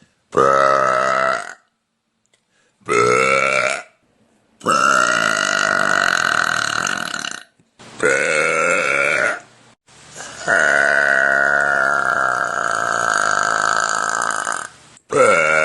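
A woman letting out a series of about six loud, drawn-out burps, each a steady pitched tone with short silent gaps between them. The longest lasts over four seconds, and the last starts just before the end.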